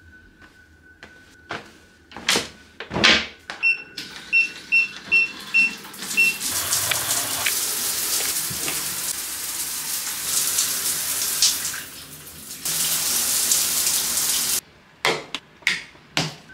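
A few knocks and clicks, then a run of five short high electronic beeps, then a shower running with an even spray of water for about eight seconds, dipping briefly and cutting off suddenly, followed by a few more knocks.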